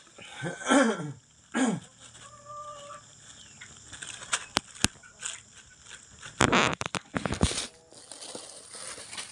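A cat meowing twice, long calls that fall in pitch, then loud crinkling of a thin plastic bag wrapped around a cat, with a few sharp clicks between.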